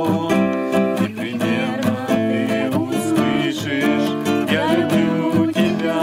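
Acoustic guitar strummed in a steady rhythm, accompanying several voices singing a hymn in Russian.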